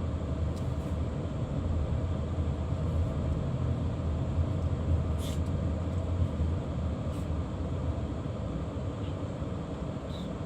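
Car running, a steady low rumble with road noise, and a couple of faint clicks.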